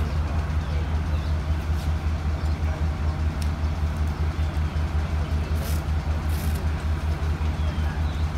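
An engine idling steadily, with a low, evenly pulsing hum.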